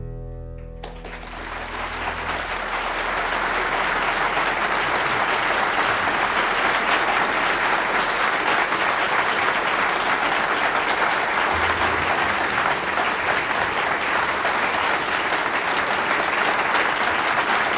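Concert audience applauding at the end of a jazz trio's tune. The last piano and bass notes ring out as the clapping swells in about a second in, then the applause continues steadily.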